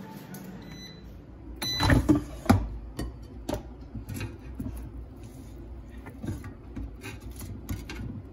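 Air fryer basket handled with loud clunks about two seconds in, then tongs clicking and knocking against the basket as a chicken breast is turned over, over a low steady hum.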